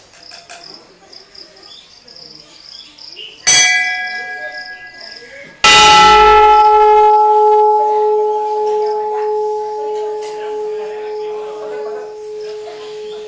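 A metal temple bell struck twice: a lighter strike about three and a half seconds in, then a much louder one about two seconds later. The last strike's ring wavers and dies away slowly.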